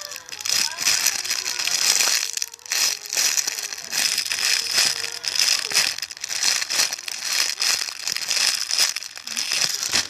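Plastic crinkling and rustling as it is handled and squeezed, a dense run of quick irregular crackles throughout.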